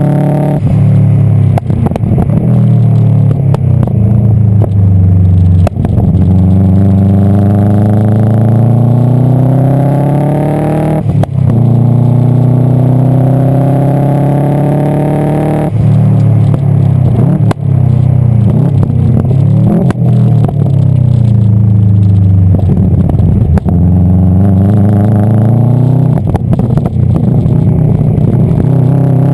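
A Subaru Impreza STI GC8's turbocharged flat-four engine is being driven hard around a circuit, running with an exhaust leak. It revs up and down through the gears, with repeated climbs in pitch, sudden drops at the gear changes and slower falls when slowing for corners. Sharp cracks come at several of the shifts.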